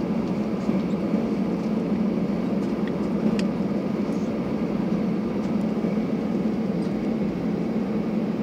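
Steady cabin noise of an Airbus A320 taxiing, the hum of its CFM56 engines at taxi power heard from inside the cabin.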